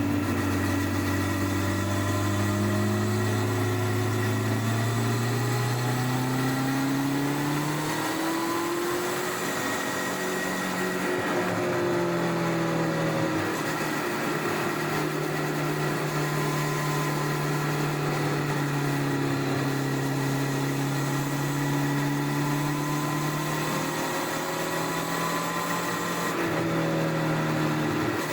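Honda CBR1100XX Blackbird's inline-four engine with its stock exhaust, running while the bike is ridden, heard from under the rear seat. Its pitch climbs steadily over the first eight seconds as the bike accelerates, then eases down and holds mostly level at cruise, rising again near the end.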